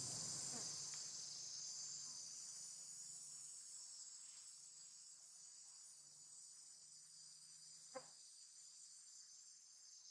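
Faint, steady high-pitched insect chorus, a continuous shrill buzz, with a single sharp click about eight seconds in.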